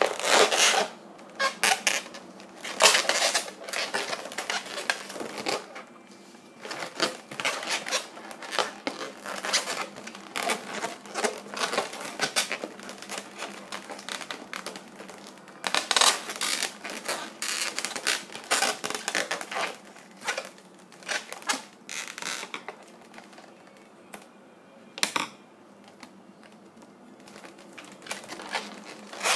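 Pink latex modelling balloons being twisted and handled, the latex rubbing and squeaking against itself in irregular bursts with short pauses between them.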